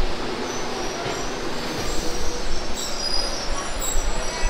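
Passenger train at a station platform: a steady noise of the coaches, with a few thin, high squealing tones about three and four seconds in.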